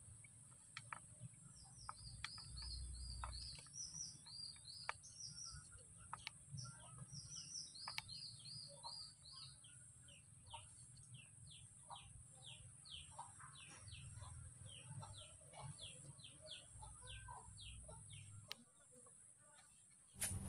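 A bird singing faintly: phrases of quick, short, falling chirps repeated over and over, with a few faint clicks.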